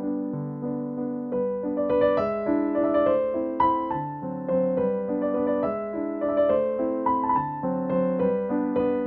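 Background music: a gentle piano melody of struck notes, with higher notes joining about two seconds in.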